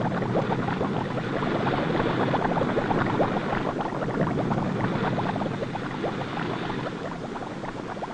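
Continuous underwater bubbling and gurgling of air escaping from a hard-hat diver's helmet, a dense stream of small pops that fades a little near the end.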